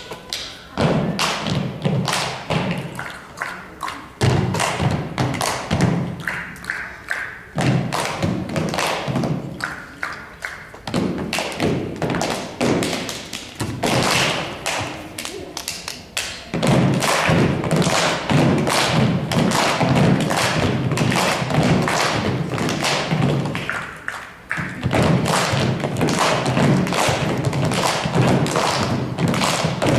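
A group of children stamping their feet and clapping or tapping on a wooden stage floor in a percussion routine: a dense run of thumps and taps, with brief pauses between passages.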